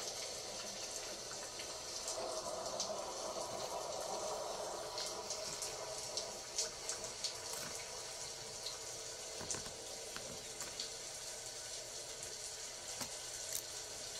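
Steady rain ambience, an even hiss, with scattered light ticks and taps from makeup tools being handled, most of them between about five and eight seconds in.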